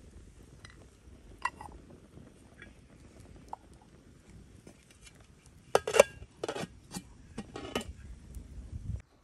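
Cookware and utensils clinking and knocking against each other. A single light knock comes about a second and a half in, then a cluster of louder clinks and knocks follows from about six to eight seconds in.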